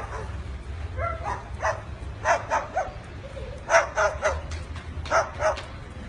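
White cockatoo mimicking a dog, giving short bark-like yaps in quick groups of two or three, about a dozen in all.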